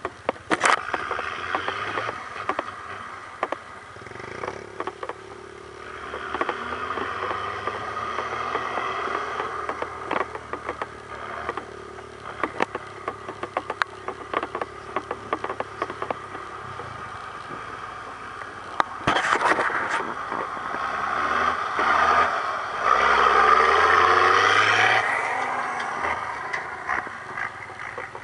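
Military 6x6 truck engine labouring as the truck crawls through brush in a ditch, with many sharp cracks and scrapes from the brush. About 22 seconds in the engine revs up, rising in pitch, at its loudest before easing off.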